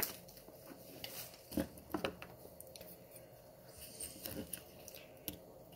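Faint handling sounds at a kitchen counter as hands move produce and a plastic produce bag about: a few scattered soft knocks and light rustles.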